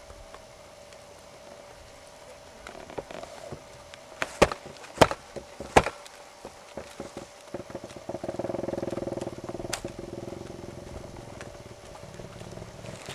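Hoofbeats of a ridden pony going round a frosty arena, with three loud sharp knocks about four to six seconds in and another near ten seconds. A steady engine hum comes in for the second half.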